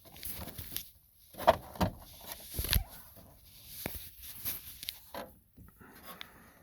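Plastic overhead console lid of a 2006 Ford F-150 being worked into the grooves on each side of the console: a series of short plastic clicks and knocks with handling rustle, the loudest knocks in the first half.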